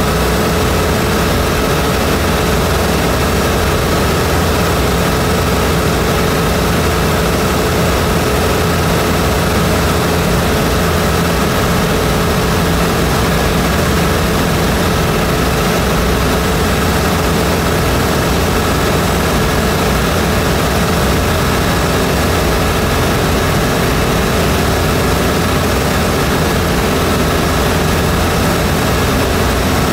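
Zenith CH750 light aircraft's piston engine and propeller running steadily in flight, heard from inside the cockpit.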